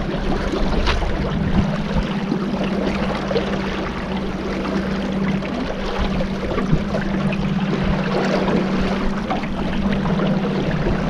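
Boat motor running at a steady cruise, a steady hum under the rush of water and wind.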